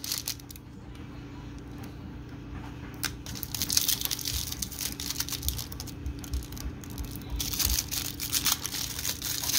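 Foil wrapper of a 1995 Topps Stadium Club card pack crinkling in the hands, sparse at first, then a denser crackling tear over the last two seconds as the pack is ripped open.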